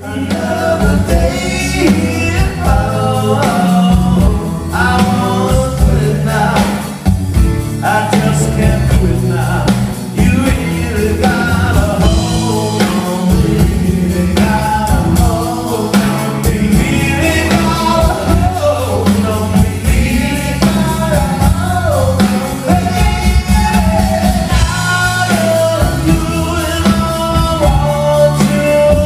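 Band with singers performing a song at full volume, the singing carried over heavy bass; it starts suddenly out of near silence.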